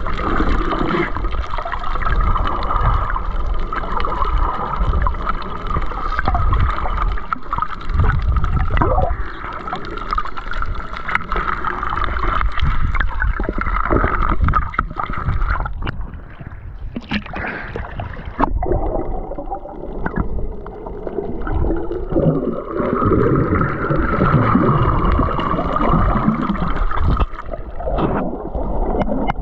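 Muffled underwater water noise picked up through a waterproof camera housing as divers swim, a steady rushing rumble with scattered clicks and knocks.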